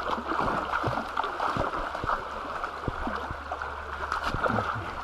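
Shallow river water rippling and gurgling over rocks, with scattered splashes and sloshing from a Weimaraner wading through it.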